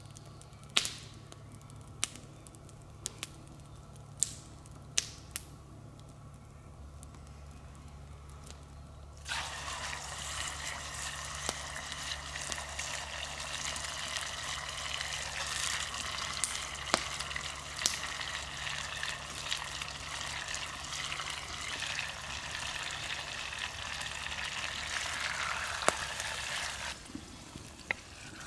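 Wood campfire crackling with sharp, separate pops. About nine seconds in a steady watery hiss starts suddenly over the crackle and cuts off just as suddenly near the end.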